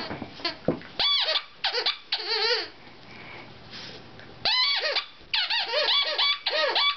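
Plush squeaky dog toy squeaked over and over as a small dog bites it, giving high honking squeals that bend up and down in pitch. The squeals come in clusters, with a pause of about a second and a half in the middle.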